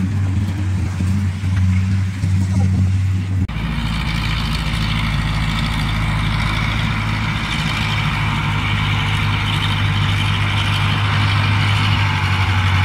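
Rice combine harvester and tractor engines running steadily in a field, a low, even drone. About three and a half seconds in the sound becomes fuller and brighter, a steady machine din.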